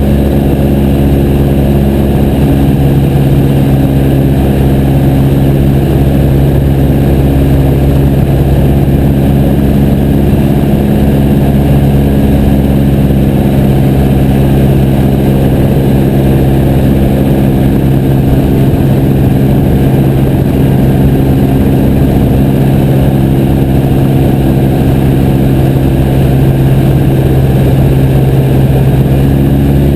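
Piper J3 Cub's engine and propeller running loud and steady at constant power, a low even drone that does not change.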